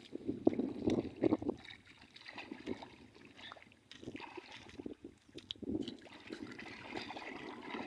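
Water sloshing and gurgling in uneven swells, with a few small knocks, louder in the first second or so.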